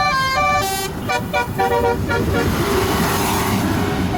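Tour bus 'telolet' multi-tone air horn playing a quick run of short notes at changing pitches over the bus's running engine. The notes stop about two and a half seconds in, and a loud rushing noise follows.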